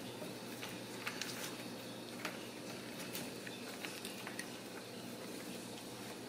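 Kittens at play: scattered light taps, clicks and scratches of paws and claws on cardboard scratchers and a tile floor, over a steady low room hum.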